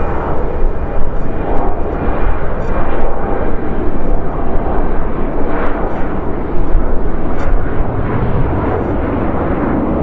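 Embraer regional jet's twin turbofan engines at takeoff power, a loud, rough, low roar that swells and fades unevenly as the jet rolls down the runway and lifts off.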